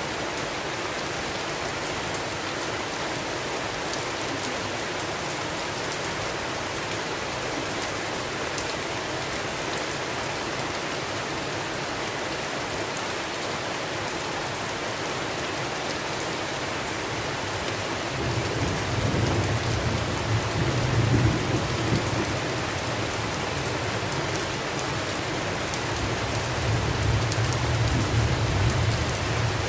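Steady rain hiss with scattered drop ticks. About two-thirds of the way in, low rolling thunder rumbles in and swells twice.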